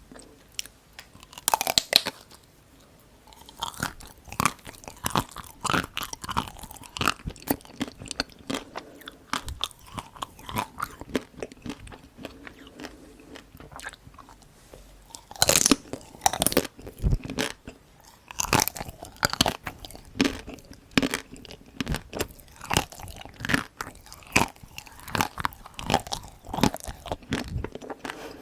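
Close-miked crunchy eating: dark-chocolate Tico ice cream bites bitten into and chewed, the frozen chocolate coating crunching. Two loud bites, one about two seconds in and one about halfway through, are each followed by quick rhythmic chewing crunches.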